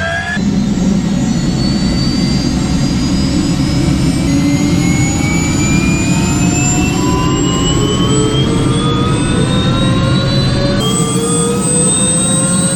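Helicopter engine and rotor running up before take-off: a heavy steady drone with an engine whine that rises slowly and evenly in pitch.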